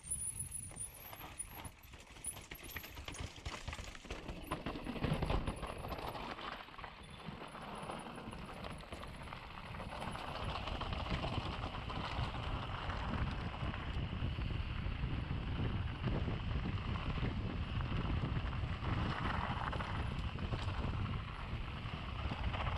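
Mountain bike riding down a rocky trail with steps: a fast, uneven run of knocks and rattles from the tyres and bike going over rock, with a low rumble that grows louder about ten seconds in.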